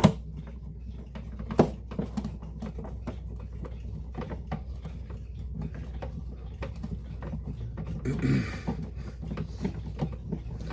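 Small clicks and taps of clock parts and a screwdriver being handled during reassembly of a wall clock, with a sharper click at the start and another about a second and a half in, and a short rustling scrape near the end.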